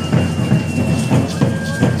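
Carrizo cane flute playing a held high note over a rhythmic tambor drum beat, in traditional Chiapas drum-and-flute music.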